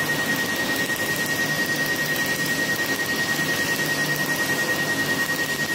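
Steady rush of air from a hose held at the skin beside a Picostar picosecond laser handpiece, with a thin high whine and a rapid, regular ticking of laser pulses as the tattoo is being treated.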